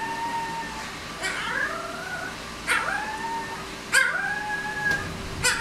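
Very young Malamute–Husky puppy howling: a string of short, high howls, a new one about every second and a half. Each starts sharply and slides down into a briefly held note.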